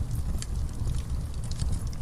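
Wood fire burning in a fireplace: a steady low rumble of flames with a few sharp crackles and pops from the burning logs.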